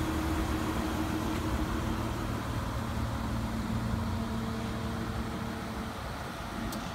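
Aston Martin DB9 Volante's V12 engine idling steadily, a low even hum, with a brief click near the end.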